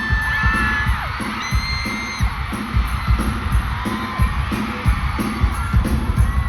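Live pop music over a concert hall's sound system, a heavy bass-drum beat at about two thumps a second, with fans screaming over it.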